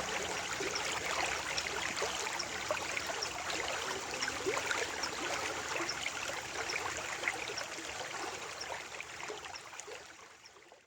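Stream water flowing and babbling, full of small splashes and gurgles, fading out over the last couple of seconds.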